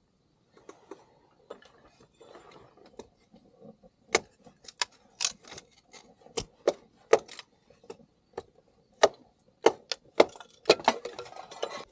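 Kindling being split with a hatchet. It starts with soft rustling, then from about four seconds in comes a run of sharp, irregular wooden knocks and cracks.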